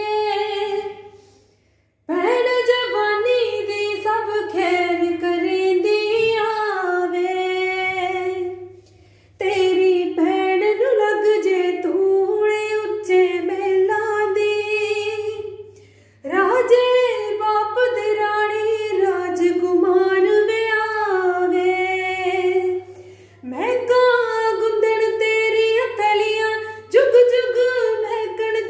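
A woman singing a Punjabi song solo and unaccompanied, in long melodic phrases broken by short pauses for breath.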